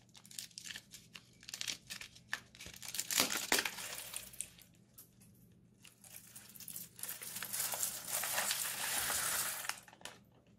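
A clear plastic piping bag packed with cut plastic straw pieces crinkles as it is handled, with the pieces clicking and rattling inside. From about seven seconds in, a louder, dense crackling runs for a few seconds as the straw pieces are squeezed out, then stops sharply.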